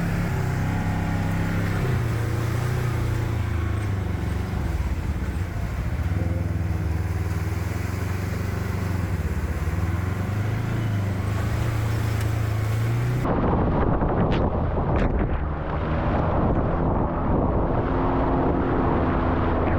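Can-Am Maverick X3 side-by-side's turbocharged three-cylinder engine running under way, its pitch rising and falling with the throttle. About 13 seconds in the sound switches abruptly to a rougher rushing noise with a few knocks, the engine still faintly under it.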